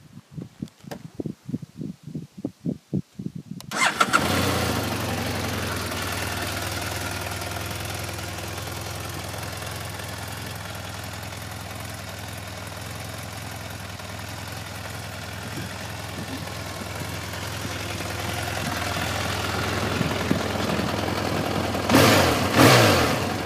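BMW F800S's parallel-twin engine starting about four seconds in, then idling steadily, with two short throttle blips near the end.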